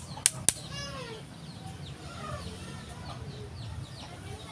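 Chickens clucking, with three sharp knocks in quick succession, about a quarter second apart, right at the start.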